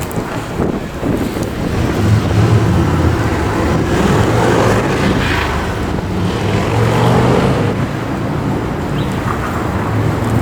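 City street traffic with a heavy vehicle's engine running close by, swelling for several seconds and then easing off.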